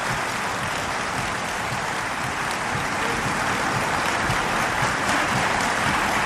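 Applause from the deputies in the parliament chamber: steady clapping that grows a little louder in the second half.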